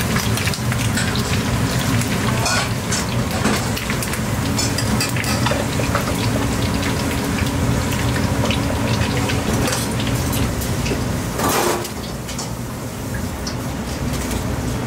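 Hot oil in a wok sizzling and crackling as deep-fried corn fritters drain above it in a wire strainer, over a steady low hum. Near the end the crackle thins out.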